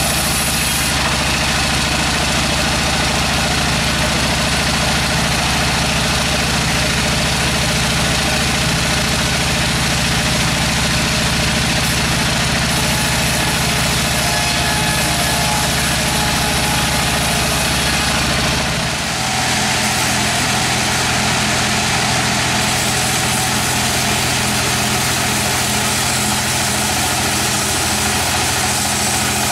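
Sawmill machinery running steadily, a low machine hum with noise spread over it. The hum changes pitch about two-thirds of the way through.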